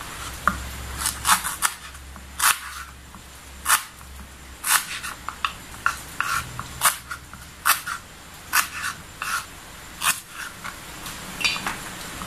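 Kitchen knife chopping lemongrass stalks on a bamboo cutting board: a run of sharp, irregular chops, roughly one every half second to a second.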